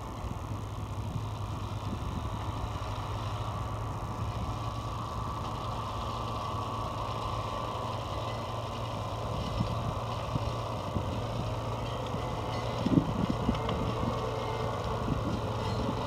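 Engine of cable-logging machinery running steadily under the grapple carriage, a constant low hum with a higher steady tone over it. A few brief bumps come near the end.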